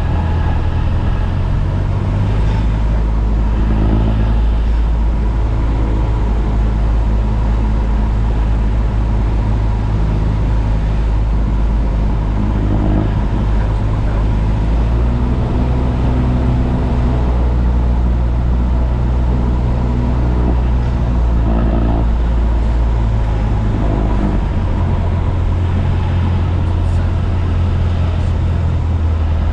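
Single-engine Cessna's piston engine and propeller droning steadily, heard from inside the cockpit, its tone changing somewhat late on.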